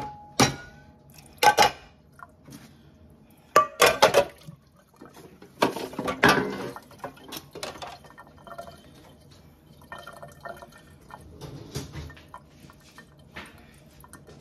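Dishes being washed by hand in a kitchen sink: utensils and a metal sheet pan knocking and clattering against the sink, with water splashing. The loudest knocks come at the start and about four seconds in, with a longer stretch of splashing and scrubbing after that.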